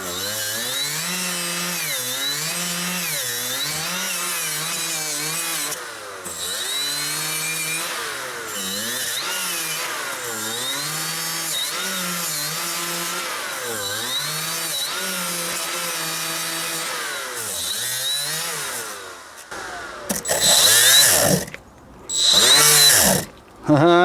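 Cordless angled die grinder (Milwaukee M12 Fuel) at its lowest speed, cleaning rust off rear brake parts. The motor's pitch sags and recovers again and again as the wheel is pressed against the metal. Near the end it runs in louder spurts, stopping and starting several times, which fits the tool cutting out every so often.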